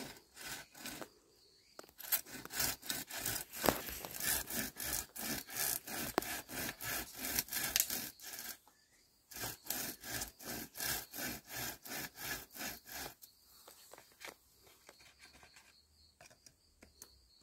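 Hand pruning saw cutting through a green bamboo culm in quick, even back-and-forth strokes. There is a short pause about nine seconds in, then the sawing resumes and stops about thirteen seconds in.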